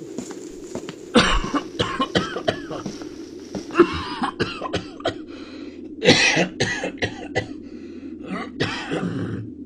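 A man coughing in repeated fits, about four bouts of short hacking coughs with throat clearing, starting about a second in.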